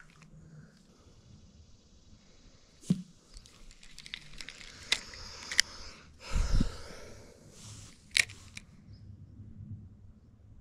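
Handling noise from hands and a shirt sleeve close to the camera: scattered sharp clicks and rustling, with one dull thump a little past six seconds in.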